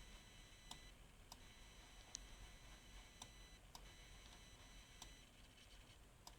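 Faint, high-pitched coil whine from an ASUS X550VX laptop's graphics card: thin steady tones that cut in and out several times as the mouse is moved, with a few light clicks between.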